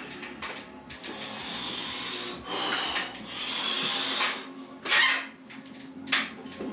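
A few light clanks from a Powertec plate-loaded lever press machine as the handles are gripped, then rough forceful breaths with two sharp exhalations as the weight is pressed overhead. Music plays faintly underneath.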